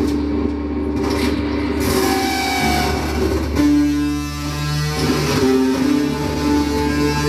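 Live amplified experimental music: long held low drone tones layered with higher sustained notes, and a noisy hiss-like wash that comes in about two seconds in.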